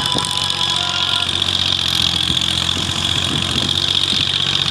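Diesel engines of a Massey Ferguson tractor and an excavator running steadily at idle while soil is loaded, with a steady high whine above the engine hum.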